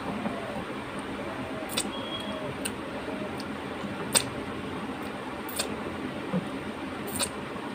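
Hand-eating sounds: fingers wiping the last food off a metal thali and being licked clean, heard as several sharp clicks and smacks over a steady background hiss. The loudest comes about four seconds in.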